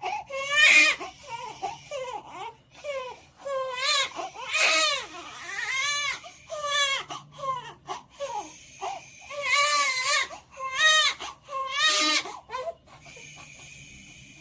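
Baby crying hard, upset after waking from sleep: a run of loud wailing cries broken by short breaths. Near the end the crying stops and a faint steady high tone is left.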